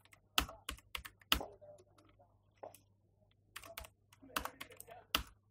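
Typing on a computer keyboard: irregular key clicks, with a short pause a little past the middle.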